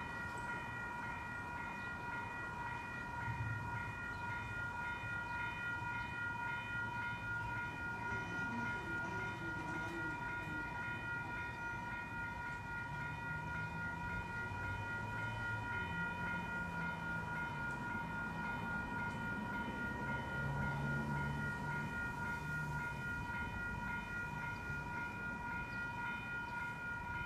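Railroad grade-crossing warning bell ringing without pause, starting at the very beginning as the crossing signals activate for an approaching train, with a faint low rumble of road traffic underneath.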